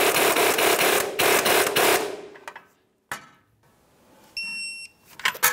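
A 3/8-inch impact gun hammers the upper ball joint stud nut down in bursts, running the nut to the bottom, and stops about two seconds in. Near the end there is a short high beep, then a sharp click.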